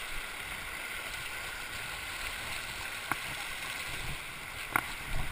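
Shallow river water rushing over cobbles close to the microphone, a steady hiss, with two sharp knocks, the louder one near the end.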